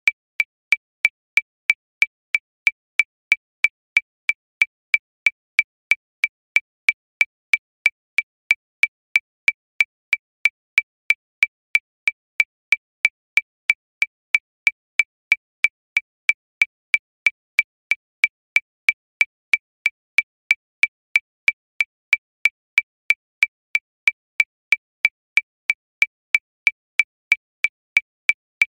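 Metronome clicking steadily at 185 beats per minute, about three short, high clicks a second, evenly spaced.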